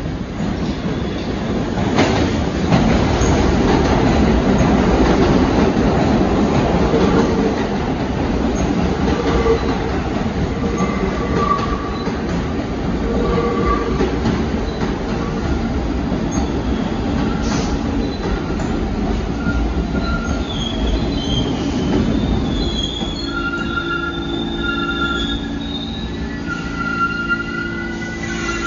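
An R46 subway train pulling into the station: a loud rumble and clatter of wheels on the rails that builds about two seconds in as the cars pass close by. Several seconds of high squealing follow as it slows along the platform.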